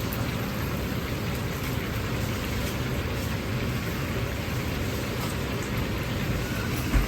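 Chicken wings deep-frying in a large batch of hot oil: a steady, even sizzle with a low rumble underneath. A single knock near the end.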